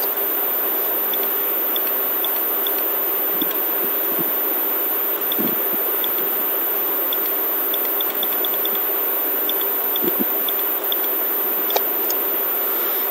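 Steady background hiss with a faint low hum, with a few faint scattered ticks.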